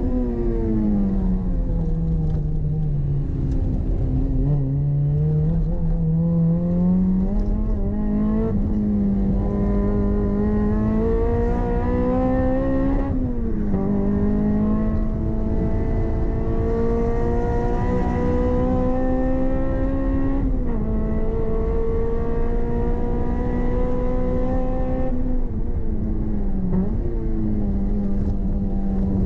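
Toyota MR-S's swapped-in 2ZZ-GE 1.8-litre four-cylinder engine heard from inside the cabin under hard track driving. The revs fall off at first, then climb steadily with a sharp drop at each of two upshifts, about halfway and again about two-thirds through. Near the end the revs dip briefly as the throttle eases, then climb again.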